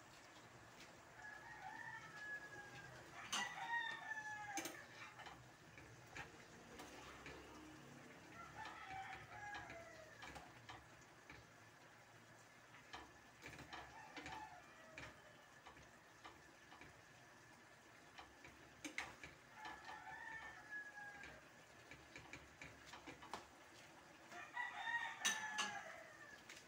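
A rooster crowing several times, roughly every five seconds, each crow a falling call about a second long.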